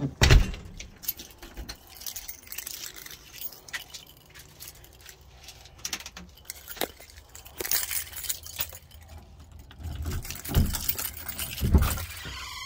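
A ring of keys jangling and clinking against a doorknob as a key is worked in the lock, with scattered small clicks and a couple of low thumps near the end as the door is opened.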